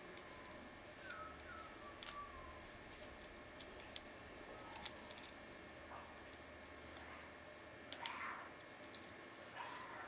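Lock pick and tension wire working the pins of a cross-key (cruciform) padlock: faint metallic scraping with scattered sharp ticks.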